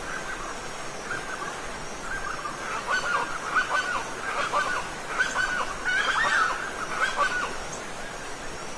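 Steady rush of falling water, with a bird calling repeatedly in short honking notes from about two and a half seconds in until about seven and a half seconds in.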